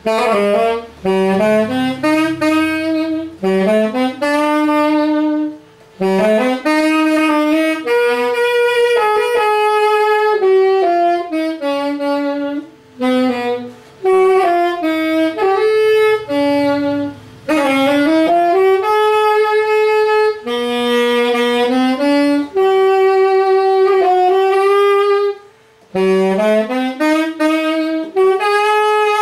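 Yamaha YAS-280 alto saxophone played solo: melodic phrases with quick upward runs and held notes, broken by short pauses for breath.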